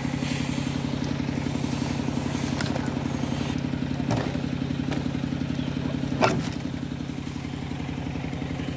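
Stihl 070 chainsaw's big single-cylinder two-stroke engine idling steadily off the cut, with two short knocks about four and six seconds in.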